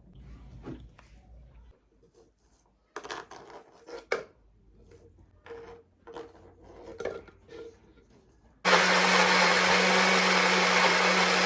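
A few light clinks and knocks, then about nine seconds in an electric blender switches on and runs loudly and steadily with a constant motor hum.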